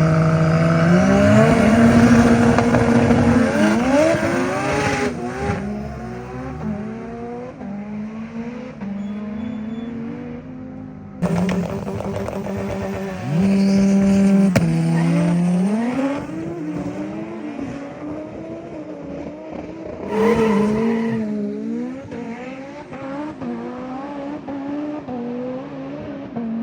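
Performance car engines revving and accelerating hard through gear changes during roll racing runs, in several clips cut together. The engine note holds steady, climbs, then drops at each shift.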